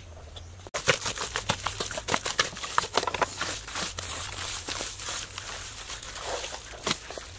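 Hands kneading and squeezing wet mud mixed with straw: an irregular run of wet squelches and straw crackles that starts suddenly about a second in.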